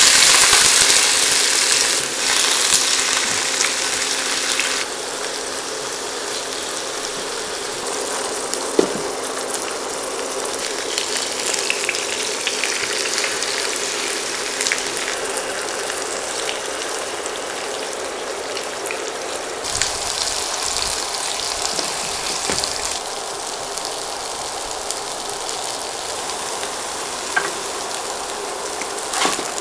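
Squares of tofu pan-frying in hot oil in a nonstick wok: a steady sizzle, loudest in the first few seconds, with occasional light clicks and scrapes of a slotted spatula turning the pieces.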